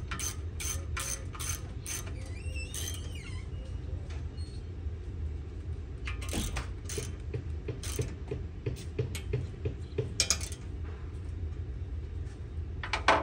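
Hand ratchet wrench clicking as a bolt on a mower deck is turned, about three clicks a second for the first two seconds, then softer clicking again midway. A few sharp metal knocks come near the end.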